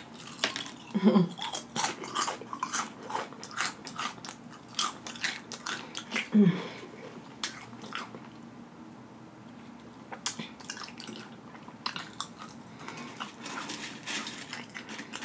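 Paqui Haunted Ghost Pepper tortilla chips crunched and chewed close to the microphone, with mouth smacking. The crunching lets up for a couple of seconds just past the middle, then starts again.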